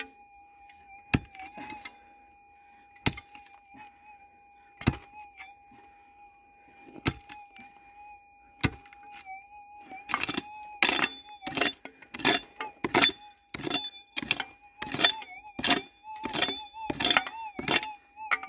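A pick striking stony ground, single blows every couple of seconds, then quick repeated chopping about twice a second from about ten seconds in. Under it runs the steady tone of a gold-prospecting metal detector sounding on a buried target.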